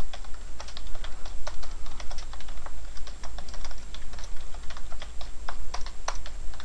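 Computer keyboard typing: quick, irregular keystroke clicks, over a steady low hum.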